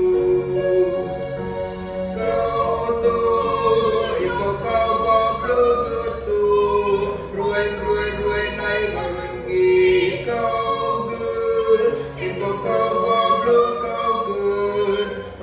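A Catholic hymn sung in the Êđê language, with voices carrying the melody over electronic keyboard accompaniment.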